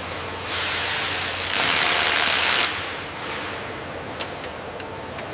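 Factory machinery with a steady low hum and two long hissing rushes of air-like noise, which fade out, then a few light clicks near the end.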